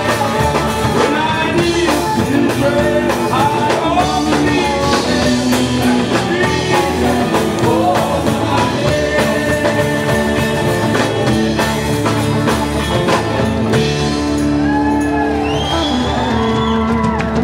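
Live gospel band performing through speakers: a man singing with an acoustic guitar, backed by a drum kit.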